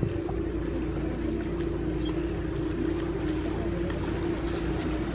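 Canal tour boat's engine running steadily: a constant low rumble with a steady droning hum.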